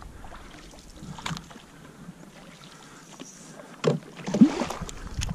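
Canoe being paddled: paddle strokes in the water with splashes and drips, and a few sharp knocks, the loudest about four seconds in.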